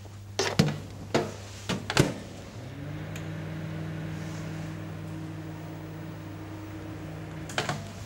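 Clicks and knocks as a bowl goes into a 1000-watt domestic microwave oven and the door is shut, then the microwave running with a steady hum for about five seconds on a short heating burst. More clicks near the end as the door is opened.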